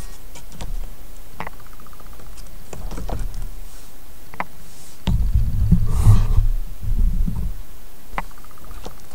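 Scattered small clicks and taps of hands handling a smartphone seated in an aluminium phone clamp on a handheld grip. A louder low rumbling thud of handling noise comes from about five to seven and a half seconds in.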